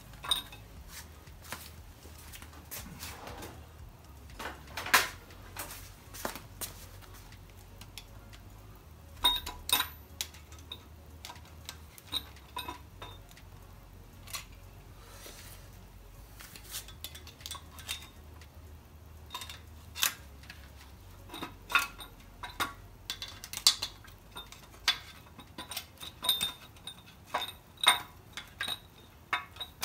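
Metal hand tools and engine parts clinking and tapping at irregular intervals, some taps with a short metallic ring, while the camshaft is being worked out of a Ford 5.0L small-block.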